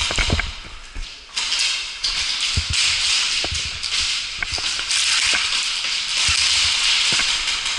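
Loud rustling hiss with scattered clicks and low knocks, from a player moving with the camera. It cuts out briefly about a second in.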